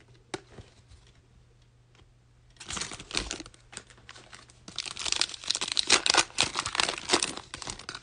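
Foil wrapper of an NBA Hoops Premium Stock trading-card pack being crinkled and torn open by hand. The rustling starts about two and a half seconds in and grows denser and louder toward the end, after a single light tick near the start.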